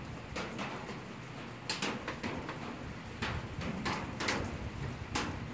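Fire burning in a metal burn barrel in the rain: irregular crackles and pops over a steady hiss, the sharpest pops a little under two seconds in and again around three, four and five seconds in.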